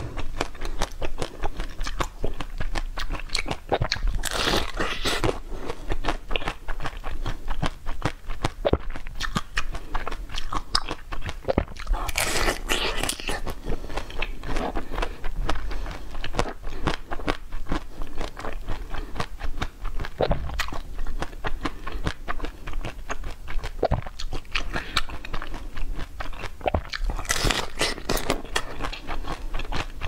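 Close-miked eating: crunchy bites and chewing with dense crackly mouth clicks, with louder crunching spells about four, twelve and twenty-seven seconds in.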